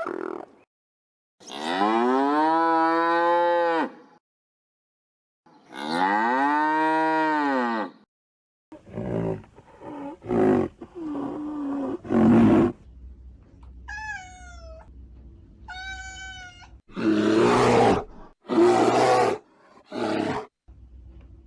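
A cow mooing twice, two long drawn-out calls that rise and fall in pitch. Then come rough, noisy animal sounds and a cat meowing twice with short, high calls that fall in pitch, followed by more rough noisy sounds.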